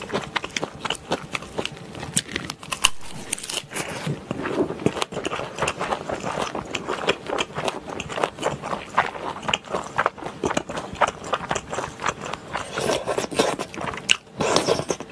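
Close-miked wet chewing and lip smacking of a mouthful of lettuce-wrapped spicy stir-fried gopchang (intestines), with dense irregular clicks. Near the end, a slurp of Chinese glass noodles.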